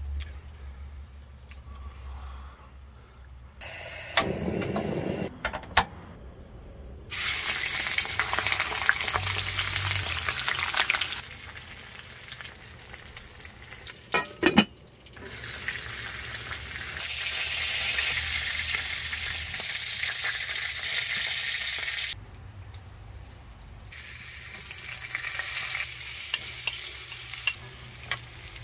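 Chicken thighs and a butter pan sauce sizzling in a cast iron skillet over a camp stove. The frying comes in several stretches with quieter gaps between them, and a few sharp clinks, likely the glass lid, fall about halfway through.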